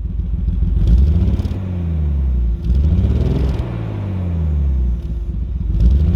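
Nissan Skyline R32 GTS-T's RB20DET turbocharged straight-six being revved three times, each rev climbing quickly in pitch and then falling back slowly toward idle.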